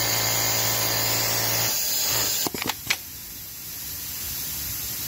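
Siruba industrial bottom-hem sewing machine running at speed with a steady hum, then stopping about a second and a half in. A few sharp clicks follow shortly after, then only a faint steady hiss.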